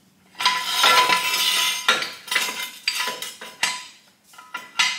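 Steel jack stand being shifted and set in place under the buggy: a dense metallic clatter lasting over a second, then a string of separate ringing clanks of metal on metal.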